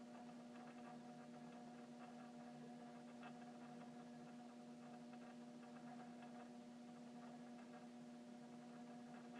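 Mechanical doorbell chime humming steadily, with its front striker vibrating against the chime. The buzz comes from the Ring Pro video doorbell wiring, with no power kit fitted at this chime.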